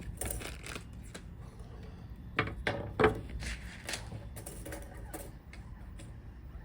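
Handling noise as a battery and a small soldered circuit board with jumper wires are picked up and positioned. Scattered small clicks and taps, with two sharper knocks about two and a half and three seconds in.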